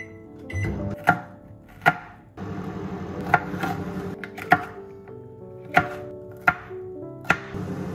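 Chef's knife chopping a red bell pepper on a plastic cutting board: a run of about eight sharp knocks of blade on board at an uneven pace.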